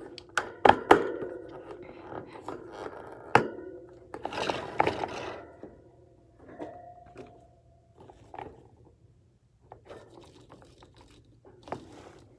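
Scattered clicks, knocks and rustling from hands handling a wire hamster cage and its plastic exercise wheel, the clicks clustered in the first second and again about three seconds in.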